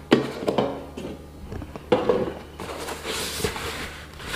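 Two knocks on the air fryer's plastic basket, one at the start and one about two seconds in, then a foam packing sheet rustling as it is pulled out of the basket.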